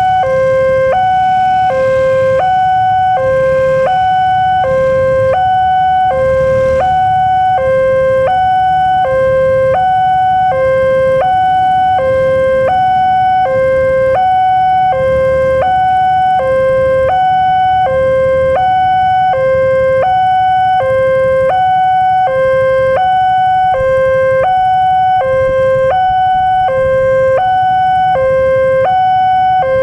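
Indonesian railway level-crossing electronic alarm sounding its warning: two tones, a lower and a higher, alternating evenly, each held about two-thirds of a second. It is loud and steady, with a low rumble underneath.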